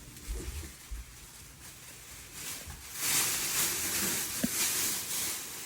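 Packing material rustling and crinkling as the prop is unpacked, loud from about three seconds in, after a few soft low thumps.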